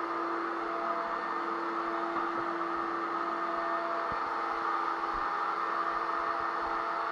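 Electric drywall sander running steadily: a constant motor whine over an even airy hiss, with faint scraping rustle from the sanding.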